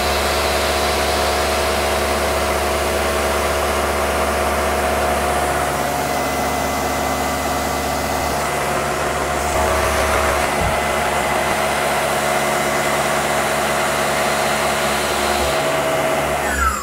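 Tormach PCNC 1100 CNC mill running a chamfer/deburr pass on a steel bracket: a loud, steady rushing hiss from the coolant nozzles over the steady whine of the spindle. It cuts off right at the end as the spindle winds down with a falling whine.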